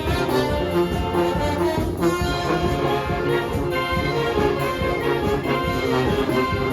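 Brass band playing a medley of Manila Sound pop songs: trombones and trumpets carrying the tune over a steady drum beat.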